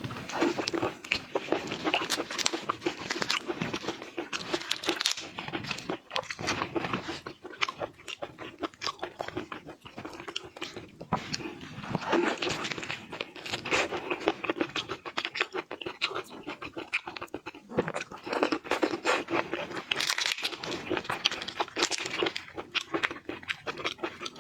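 A person crunching and chewing shrimp: rapid crackly clicks in clusters, with short pauses between mouthfuls.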